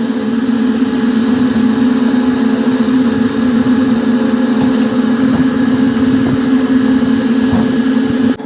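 A motor vehicle's engine running steadily, a loud, even drone that holds one pitch and stops abruptly at the very end.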